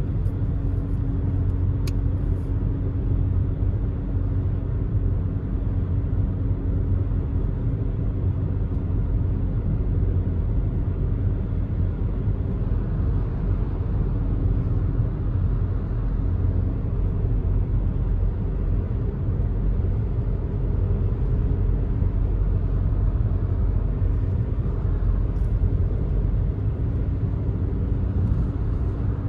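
Inside the cabin of a VW Tiguan 2.0 TDI, a 140 PS four-cylinder diesel, cruising on the motorway: a steady, low drone of engine, tyre and road noise with a faint steady hum. A single click sounds about two seconds in.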